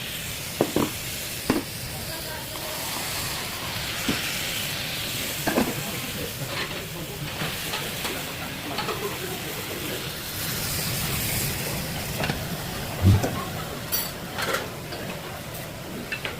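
Seafood nurungji-tang (scorched-rice soup) sizzling and hissing steadily, with a few short knocks scattered through it.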